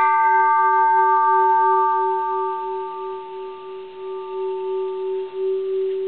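Mid-1800s Japanese bronze Buddhist temple bell ringing on after a light stroke from a wooden striker, the bell free of cracks. A steady low hum with a slow pulsing waver holds throughout, while the higher overtones fade away one by one over the first few seconds.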